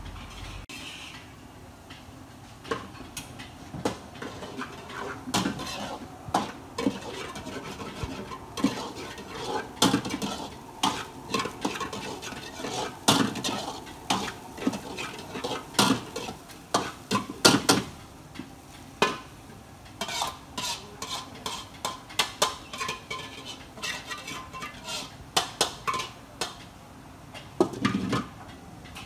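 A metal ladle scraping and clanking against a wok as rice is stir-fried, in quick irregular flurries of strikes.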